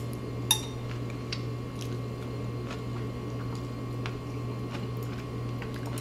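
Light clicks and clinks of chopsticks against a glass bowl while spiralized cucumber noodles are eaten, scattered irregularly with a sharper click about half a second in, over a steady low hum.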